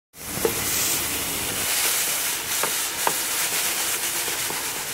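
Silkworm pupae dry-roasting in a stainless steel pan: a steady hiss and sizzle, with a few sharp pops.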